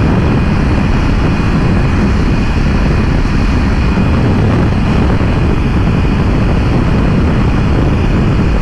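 BMW S1000RR sport bike at steady highway speed, heard through a helmet microphone: a constant low rush of wind and engine at cruise, with no change in pace.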